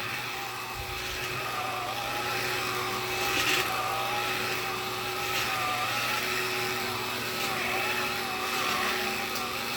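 Black & Decker cordless lithium pet vacuum running steadily, its motor whine wavering slightly in pitch as it is pushed over the floor.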